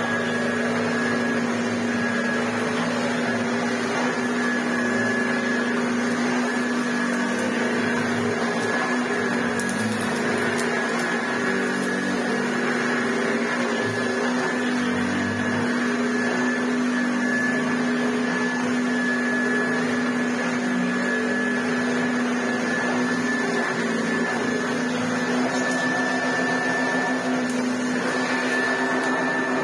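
Hoover Junior U1104 flat-belt upright vacuum cleaner running steadily, its motor giving a constant hum and a high whine. The machine is working well after its repair.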